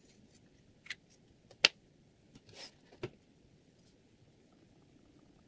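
Small tabletop handling sounds: a few sharp plastic clicks, the loudest about a second and a half in, and a brief paper rustle in the middle, as a marker is put down and a paper-wrapped diamond sharpening stone is picked up.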